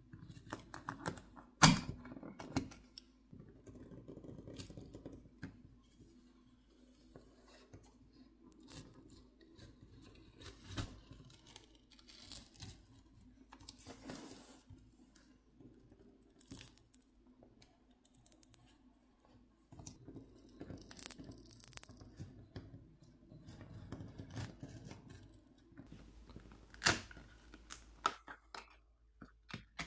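Blue plastic pry pick slid under the edge of a phone's back plate, with soft scraping, crackling and clicking as the heat-softened adhesive peels apart. A sharp click comes about two seconds in, and another near the end.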